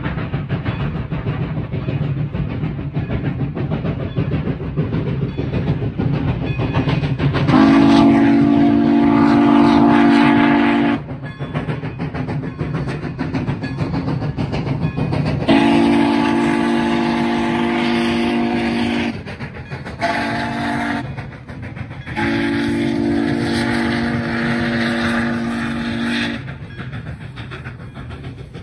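Pere Marquette 1225, a 2-8-4 Berkshire steam locomotive, sounds its steam whistle in the grade-crossing pattern: two long blasts, a short one, then a long one. Under the whistle the passing train makes a steady rumble.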